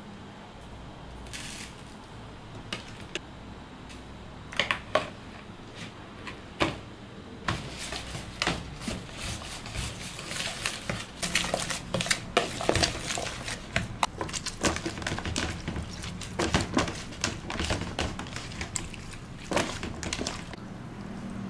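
A metal spoon taps and scrapes in a plastic basin with a few separate clicks. From about seven seconds in comes a busy run of clicks and rustles as chopped green vegetables are tossed and mixed in the basin, first with the spoon and then by hand.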